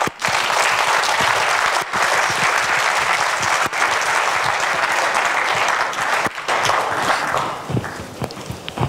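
Large audience applauding, a dense steady clapping that thins out and fades over the last second or so.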